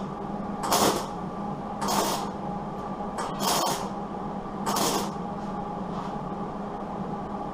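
Welder laying short tack welds on door sheet metal: four brief crackling hisses about a second apart in the first five seconds, over a steady low hum.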